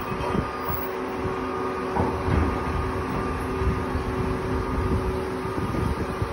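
Roll-off truck's diesel engine running as it drives off hauling a loaded roll-off container: a steady low rumble with a faint steady hum over it.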